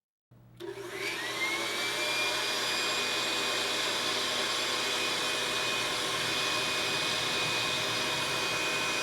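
Electric blower motor switching on, its whine rising to a steady pitch within about a second, then running steadily as it blows air into a giant balloon.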